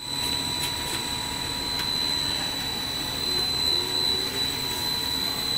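Twin-screw snack-pellet extrusion line running: a steady mechanical din with a constant high whine over it and a few light clicks.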